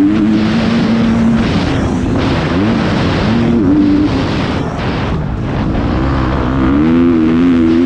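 Motocross bike engine under hard throttle on a dirt track, heard from the rider's helmet, with wind rushing over the microphone. The engine note holds, drops when the throttle closes a few times, and climbs again near the end.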